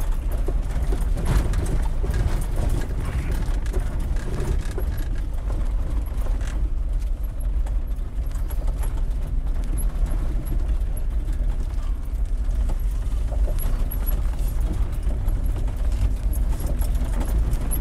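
Inside a Jeep's cab while it drives slowly over a gravel road: a steady low rumble of engine and tyres with constant small rattles and creaks from gear in the back, which the driver takes for his toolbox.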